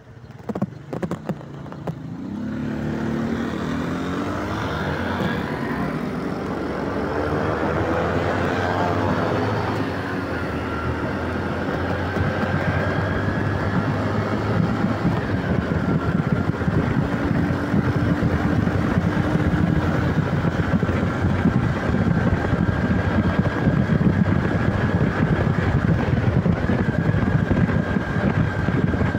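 Bajaj Platino 110's single-cylinder engine pulling away, rising in pitch for several seconds as the bike speeds up, then running steadily at riding speed.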